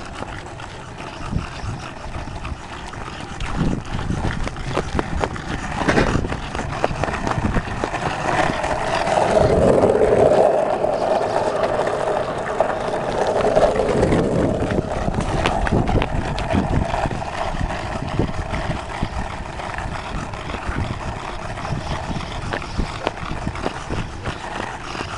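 Skateboard wheels rolling on rough asphalt: a continuous rumble with frequent clicks and rattles, loudest around the middle.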